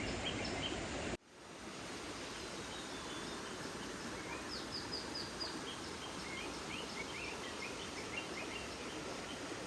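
Steady rush of a small stream flowing over rocks, with birds chirping: a quick run of four falling notes about halfway through, then scattered chirps. The sound cuts out briefly about a second in.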